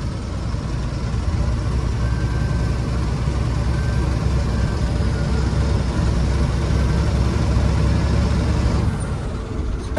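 Loaded lorry's diesel engine and road noise heard inside the cab while driving, a steady low rumble that eases slightly near the end.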